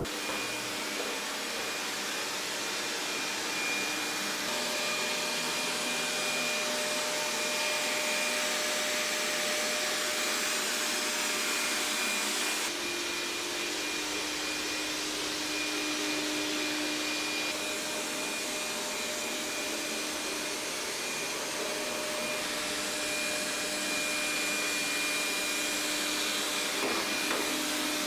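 Vacuum cleaner running steadily, a constant rushing noise with a faint motor whine.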